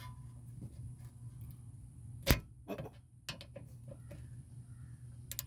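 Hand tools working on a car's rear brake caliper hardware: one sharp metallic click about two seconds in, then a few lighter clicks and taps, over a low steady hum.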